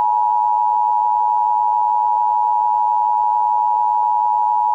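Emergency Alert System attention tone: a loud, steady electronic tone near 1 kHz held unbroken, the signal that announces an emergency alert message, here a severe thunderstorm warning.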